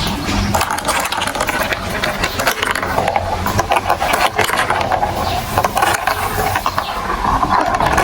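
Marbles rolling and clattering through a plastic building-block marble run, a dense continuous rattle of small clicks and knocks.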